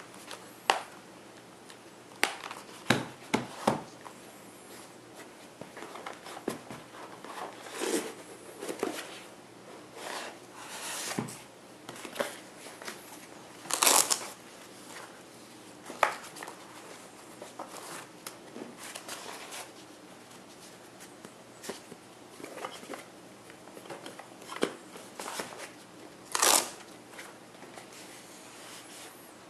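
A foam knife-holder block and its fabric hard case being handled on a wooden table: irregular rustling, scraping and soft knocks, with a couple of sharper clacks about halfway through and near the end.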